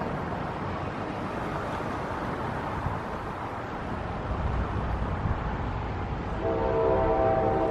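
An approaching NJ Transit train's steady low rumble, mixed with wind. Near the end, the locomotive's air horn sounds one multi-note chord for about a second and a half.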